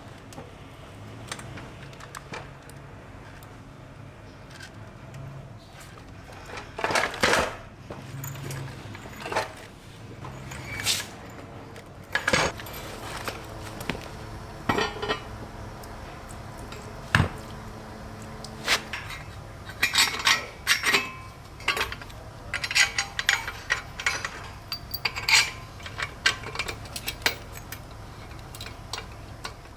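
Metal tools, bolts and motorcycle parts clinking and knocking at irregular intervals as an engine is unbolted and stripped from the frame, more often in the second half, over a faint steady low hum.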